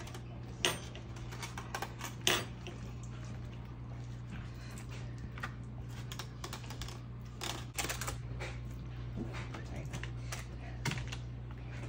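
Silicone spatula stirring Greek yogurt and blueberries in a bowl: an irregular run of small clicks and scrapes against the bowl, with the spatula spreading the frosting over the cake near the end. A steady low hum underneath.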